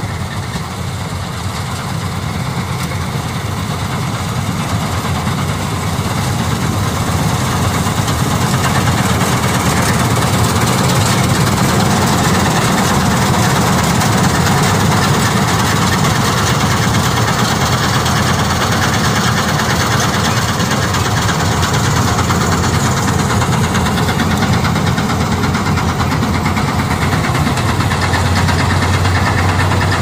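Gurdial 651 self-propelled combine harvester running under load while cutting and threshing soybeans: its diesel engine and threshing machinery make a steady mechanical noise. The noise grows louder over the first several seconds as the combine comes up close, then holds steady.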